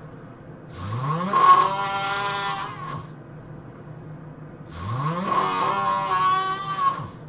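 A person snoring heavily: two long snores about four seconds apart, each starting low and rising in pitch into a loud, buzzing tone.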